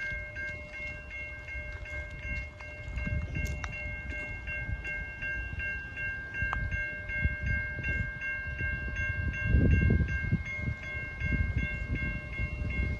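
Railroad grade-crossing warning bell ringing in quick, even strokes, about two or three a second, with low wind rumble on the microphone that swells about ten seconds in.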